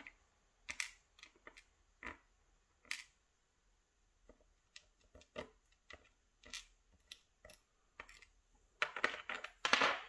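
Steel tweezers and small Assa 600 lock pins clicking and tapping as the pins are lifted out of the lock core and set down on a plastic tray. The clicks are light and scattered, with a louder cluster of handling near the end.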